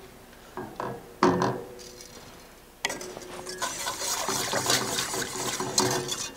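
A silicone spatula scraping around the sides of a stainless steel pot of flour-thickened broth in a few separate strokes, one louder knock about a second in; then, from about three seconds in, a wire whisk beating the liquid quickly and continuously against the pot.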